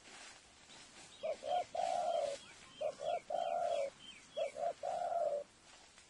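A dove cooing three times: each phrase is two short notes and then a longer held note. Another bird gives faint short, falling chirps over it.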